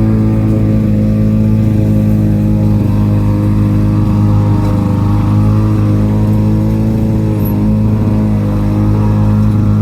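Small lawn mower engine running steadily at mowing speed, its pitch wavering slightly as the load changes.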